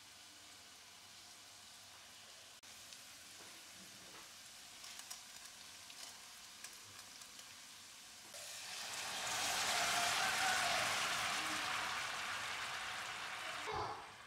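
Pumpkin cubes and onion frying gently in a stainless steel pan, with a faint sizzle and a few small pops. About eight seconds in, a much louder sizzle starts suddenly as liquid hits the hot pan, then slowly fades. Near the end comes a knock as the glass lid goes on.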